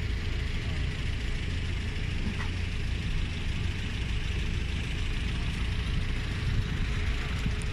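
Steady low rumble with a hiss above it, unbroken and with no single event standing out: outdoor background noise.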